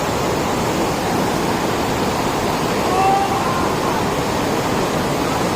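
Steady rush of a waterfall and fast-flowing water, a loud even noise with no let-up. A faint distant voice is heard briefly about three seconds in.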